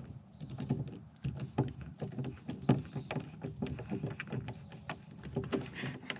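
Hand screwdriver and screws at work on a lock mounting plate: many small, irregular clicks and taps as the driver turns and the screw is fiddled into place.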